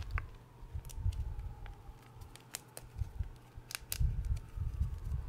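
Hands pressing and squeezing into loose crushed gym chalk powder: soft, uneven low crunches and squishes, with a few sharp little crackles of lumps breaking.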